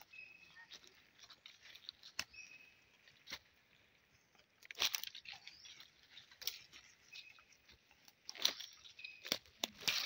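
Footsteps crunching irregularly on dry leaf litter, with the loudest crunches about halfway through and in the last two seconds.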